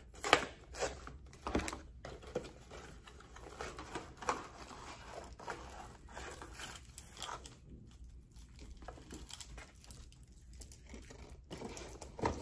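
A cardboard box of Brach's candy canes being torn open and handled: irregular crinkling and tearing with small snaps, the loudest just after the start.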